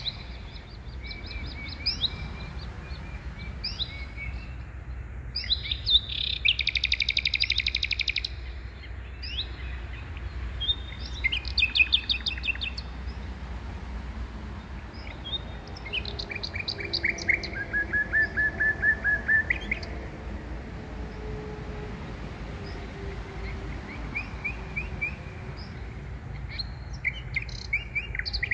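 Small birds singing in short, repeated trills and chirps, one phrase after another, over a steady low rumble.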